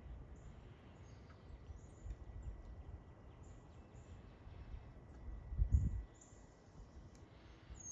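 Outdoor backyard ambience: scattered faint, short, high bird chirps over a low, uneven rumble that swells briefly to its loudest about three-quarters of the way through.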